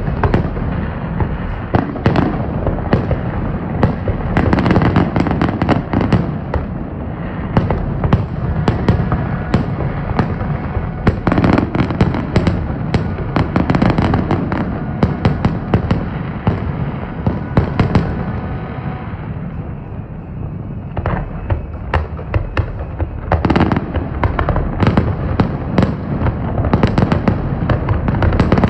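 Fireworks display: a dense run of bangs and crackles from aerial shells over a constant low rumble. The bangs thin out briefly about twenty seconds in, then pick up again.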